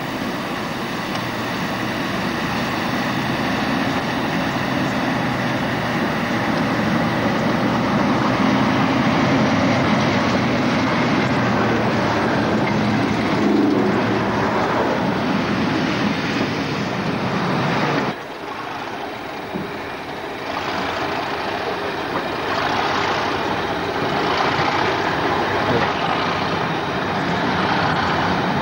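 Pair of English Electric Class 37 diesel locomotives approaching with engines running loud and building. The hauled coaches then rumble past close by. After a sudden break about 18 seconds in, the train noise picks up again with a pulsing rhythm as the train moves off.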